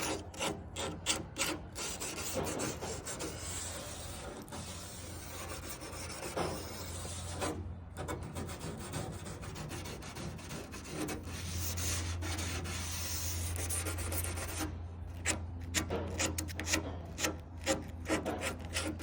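Plumber's emery cloth (fine aluminum-oxide sanding tape) rubbed back and forth along the edge of a Cybertruck body panel, making a dry, scratchy rasp. A quick run of short strokes comes near the end. The sanding is smoothing a rough cut panel edge.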